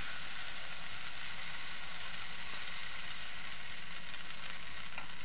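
Batter sizzling steadily in a hot oiled non-stick frying pan as it is spread out into a round, with a faint tick near the end.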